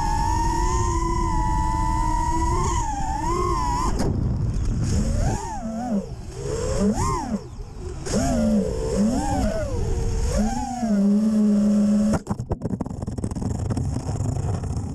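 FPV freestyle quadcopter's four brushless motors and props whining over a heavy low wind rumble. The whine is steady for the first few seconds, then swoops up and down in pitch again and again as the throttle is worked. About twelve seconds in it cuts back sharply.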